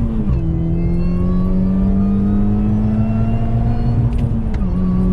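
Mini Cooper S R53's supercharged four-cylinder engine pulling under acceleration. Its pitch climbs steadily between two gear changes, one just after the start and one near the end, where the revs drop suddenly.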